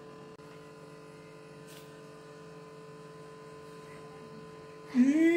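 Steady electrical mains hum with a few faint steady tones, the last of a guitar chord dying away at the start. Near the end a woman's voice comes in.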